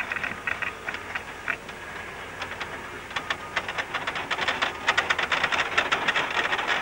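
Freight wagons rolling in a railway yard. A broken, high squealing tone of steel wheels lasts about the first second and a half. From about two and a half seconds in comes a dense, quickening clatter of wheels and couplings over rail joints.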